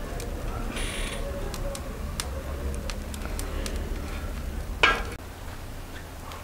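Thin batter cooking on a hot upturned domed iron griddle over a fire: faint scattered ticks and small pops over a steady low rumble, with a short louder hiss about five seconds in.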